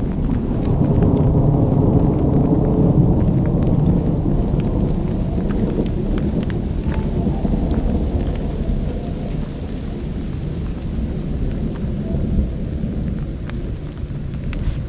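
Thunder rumbling long and low, loudest at first and slowly fading over the rest, with rain falling and a few scattered raindrop ticks.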